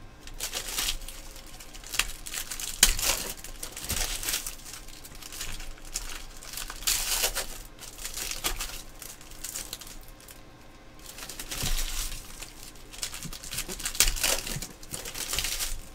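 Foil wrappers of 2015-16 Panini Select Soccer card packs crinkling in the hands as packs are handled and torn open, in irregular rustling spurts.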